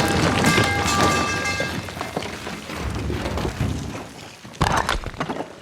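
Low rumble dying away after an explosion. Several clear high tones ring in the first two seconds, and a sharp crash or thud comes near the end.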